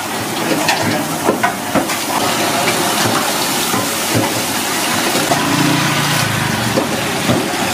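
Steady hiss of a busy cooking kitchen, with scattered sharp clinks of metal utensils.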